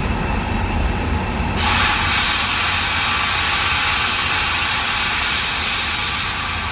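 Locomotive running with a low rumble; about one and a half seconds in, a loud, steady hiss of air from the train's air brakes starts abruptly and holds.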